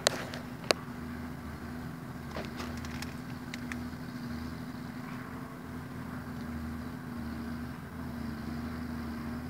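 Vehicle engine idling steadily, heard from inside the cab as a low, even hum, with a few faint clicks.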